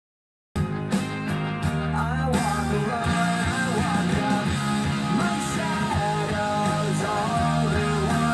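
Rock song with guitar playing through a pair of Panasonic two-way bookshelf speakers (carbon woofer and quartz tweeter) driven by a TDA7498 amplifier, picked up by a phone in the room. It starts suddenly about half a second in and holds steady.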